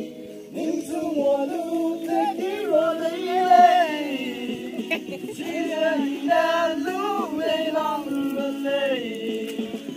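Music: a song with voices singing together over a steady low backing.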